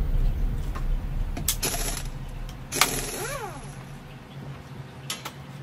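Electric drivetrain of a 1/10-scale Boom Racing BRX01 RC crawler whining up and falling back once in a short throttle burst, among a few sharp knocks.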